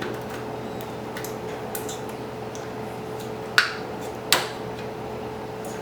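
Light clicks and taps of small plastic and metal parts of a car radio display unit being handled and pressed into place, with two sharper clicks under a second apart a little past the middle. A steady hum runs underneath.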